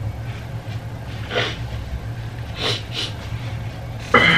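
Quiet eating and drinking noises: a few soft slurping sips from a glass over a steady low room hum, then a short vocal sound near the end.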